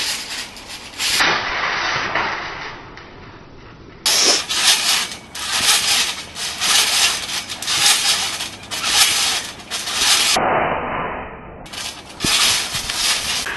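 Trampoline springs and mat rasping and creaking under two people bouncing together, a noisy stroke with each bounce. The bouncing is lighter for the first few seconds, then comes in a quick run of about one to two strokes a second.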